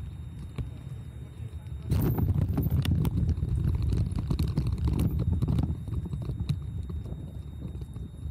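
Bicycle and its handlebar-mounted camera jolting over cobblestones: a rapid, irregular rumbling and knocking. It gets louder about two seconds in and eases off again a little past halfway.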